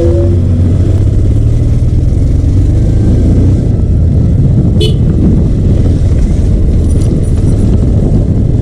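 KTM motorcycle engine running steadily under way, with heavy wind and road rumble on the rider's camera microphone and a single sharp click about five seconds in.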